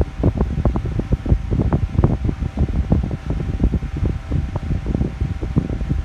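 Mondial Super Power 40 electric fan running, with a faint steady hum. Its airflow buffets the microphone in an uneven, gusty low rumble.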